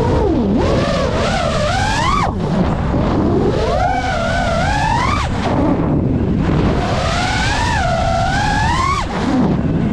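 FPV quadcopter's motors and propellers whining as the throttle is worked: the pitch climbs and wavers, then drops sharply when the throttle is cut, three or four times, over a steady low rush of wind noise.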